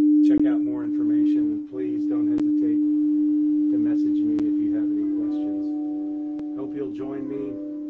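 A singing bowl sounding one steady, pure low tone that swells and fades slowly. About five seconds in, a brighter second ringing tone with several overtones joins it.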